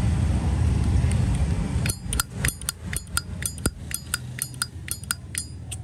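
A low rumble of passing traffic fills the first two seconds, then a Zippo lighter's lid is snapped open and shut over and over, sharp metallic clicks about four a second, a check that the cam spring is strong.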